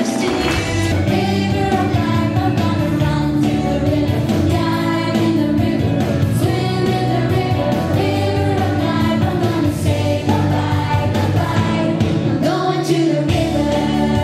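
A children's choir singing a song together with instrumental accompaniment.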